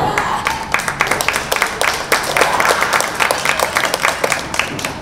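A crowd clapping, many hands at once in a dense run of claps.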